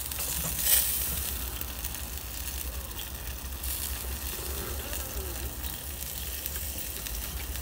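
Chicken pieces sizzling on a barbecue grill, a steady hiss with a sharper, louder crackle about a second in and a low rumble underneath.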